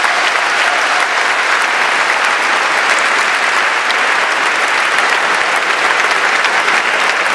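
Large audience applauding steadily at the close of a speech.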